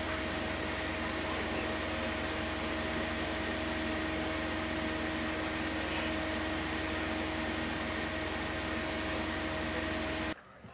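Steady mechanical running noise with a few steady tones over it, which cuts off abruptly near the end.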